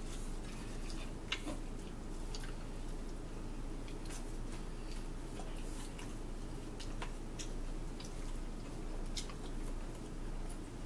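Pizza being eaten: chewing and scattered small clicks and taps, over a steady low hum.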